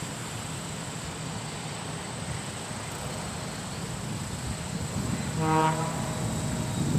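Steady low rumble of harvest machinery, growing louder near the end, with one short horn toot about five and a half seconds in.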